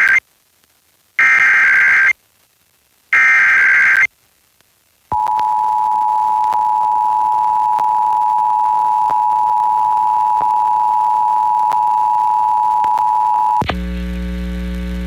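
Emergency Alert System SAME header: the end of one screeching digital data burst, then two more about a second apart. After a second's pause comes the EAS two-tone attention signal (853 and 960 Hz), held steady for about eight seconds, opening a required monthly test. Near the end it cuts off into a steady electrical hum from the relayed message feed.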